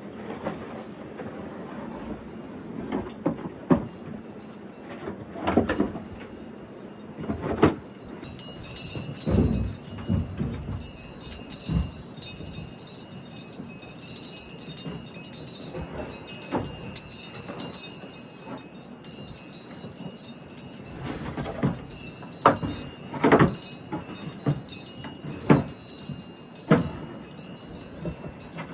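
Wind chimes ringing, several high tones that linger, sounding from about eight seconds in, with scattered short thumps and knocks throughout.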